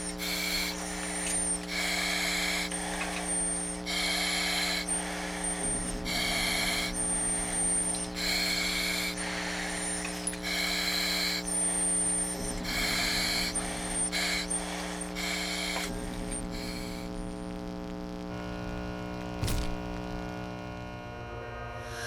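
Titanium flashlight head being twisted back and forth on its threads about twenty times, roughly one short scraping turn a second, cycling the light through its modes. A steady electrical hum runs underneath, and a single click comes near the end.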